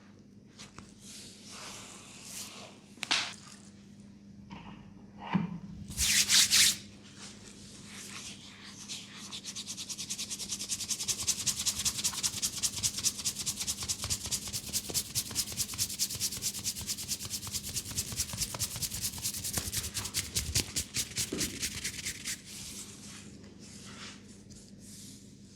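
Hands rubbing briskly over hair and scalp in a head massage: a fast, even run of swishing strokes, several a second, lasting about twelve seconds. Slower scattered rubs and one louder rub come before it.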